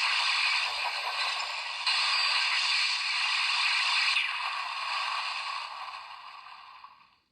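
Electronic sound effect played through the small built-in speaker of a Kamen Rider Gaim CSM Lockseed toy: a dense noisy effect that steps up a little about two seconds in, then fades out over the last few seconds.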